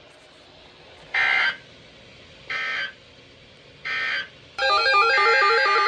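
EAS end-of-message data bursts: three short, buzzy digital chirps about a second and a half apart, which signal that the alert message is over. About four and a half seconds in, a loud electronic warbling sound starts, stepping rapidly up and down between pitches.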